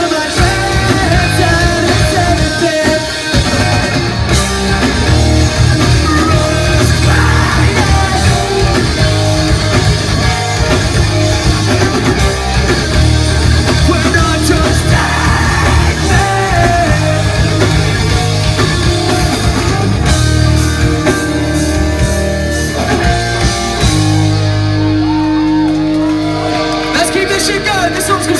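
Live pop-punk band performance: loud electric guitars, bass and drums with sung and shouted vocals. Near the end the cymbals drop away and a low chord is held.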